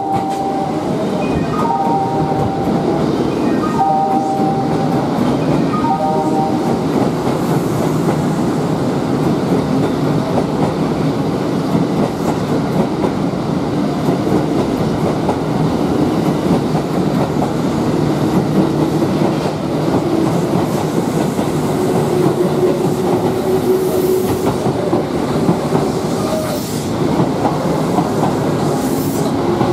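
Kintetsu electric train running along the platform, its wheels clacking over the rail joints with a steady rumble. In the first six seconds a two-note electronic chime repeats about every two seconds, and near the end a steady low hum rises under the rail noise.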